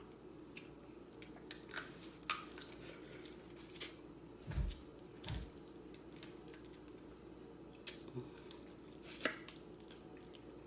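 Crab leg shells being cracked and snapped apart by hand: scattered sharp cracks and clicks, with two dull low thumps about halfway through. A steady low hum runs underneath.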